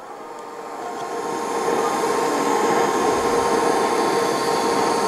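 TIG welding arc on a steel rod: a steady hiss with a faint hum, growing louder over the first two seconds and then holding.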